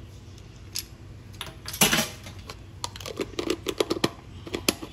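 Kitchen utensils and containers handled on the counter: one longer, louder clatter about two seconds in, then a run of quick light clicks.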